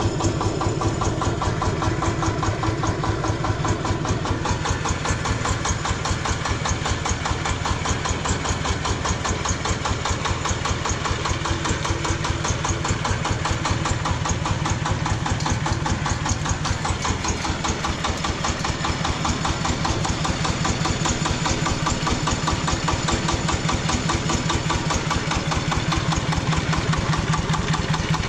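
Jiangdong diesel engine on a homemade tractor, running steadily with an even, rapid chugging beat.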